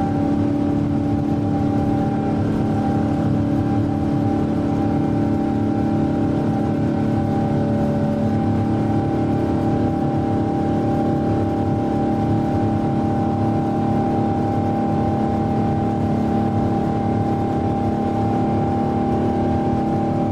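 Boeing 777's GE90 jet engines heard from inside the passenger cabin: a steady drone with several held tones over a rush of noise.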